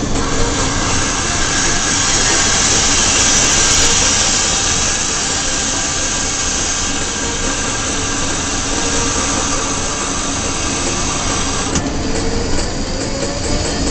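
ET22 electric freight locomotive running at speed, heard from inside its cab: a steady rumble and hiss of wheels on rail and running gear, with a faint steady hum of the traction equipment. Near the end a whine rises in pitch.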